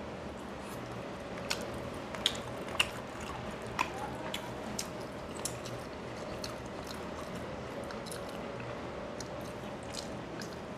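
Close-up chewing and wet mouth clicks of a man eating rice and bony rui fish tail by hand, with a few sharper clicks in the first four seconds. A faint steady hum runs underneath.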